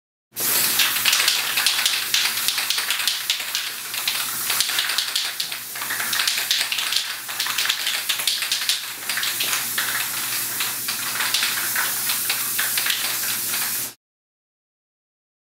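Aerosol spray paint can spraying: a steady hiss that swells and dips as the spray goes on. It starts about half a second in and cuts off suddenly near the end.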